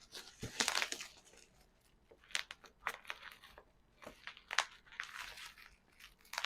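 Packaging wrap being crumpled and torn by hand while a package is opened, in irregular crinkling bursts, the loudest just under a second in.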